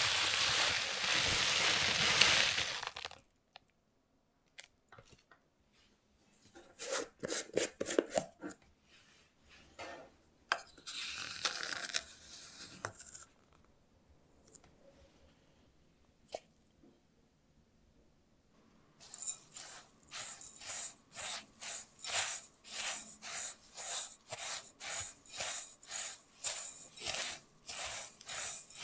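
Ground Oreo cookie crumbs poured into a glass bowl, a dense hiss for about three seconds. Then scattered clicks and scrapes as a plastic spoon scoops baking powder from its tub, and in the last ten seconds a plastic spoon stirs the dry crumbs in the glass bowl with regular scrapes, about three every two seconds.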